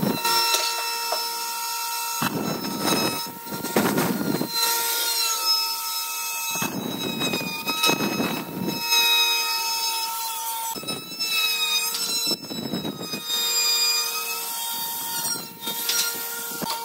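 Handheld electric wood router running with a steady high whine, cutting a profile along the edge of a curved solid-wood table leg. The whine is broken four times by spells of coarser cutting noise as the bit bites into the wood.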